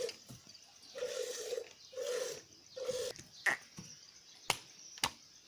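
A goat making short, low grunts, roughly one a second, then a few sharp clicks in the second half.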